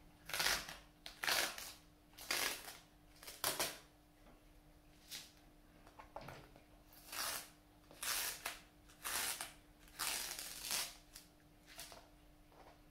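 Masking tape being peeled carefully off the edge of watercolour paper, in a series of short rasping rips roughly one a second, some in quick pairs, with a faint steady hum beneath.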